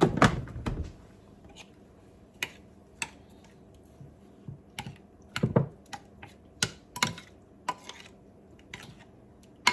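Scattered light clicks and taps of kitchen utensils and containers, as a spoon and sugar container are handled over a dish of fruit; the loudest knocks come at the start and about halfway through.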